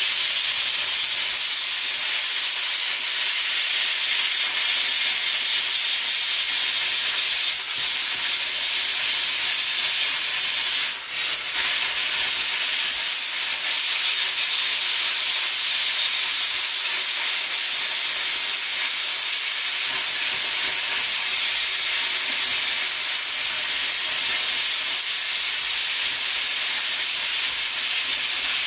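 Hypertherm Powermax 30 plasma cutter's arc hissing steadily as the torch cuts through a steel bracket, with a brief dip about 11 seconds in.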